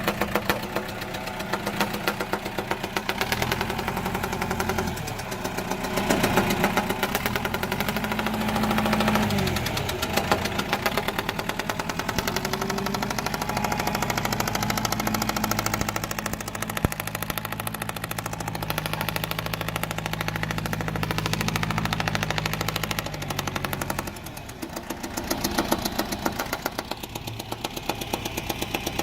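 John Deere 410 backhoe loader's diesel engine running with a rapid, even knock of firing strokes. Its speed changes several times: it climbs between about three and ten seconds in, holds steady, then drops at about twenty-four seconds and picks up again.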